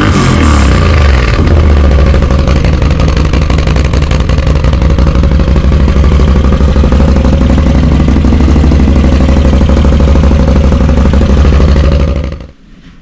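Can-Am Outlander MAX 850's V-twin engine running through a Dominator slip-on exhaust: a quick rev that falls back in the first second or so, then a steady, loud idle that cuts off abruptly near the end.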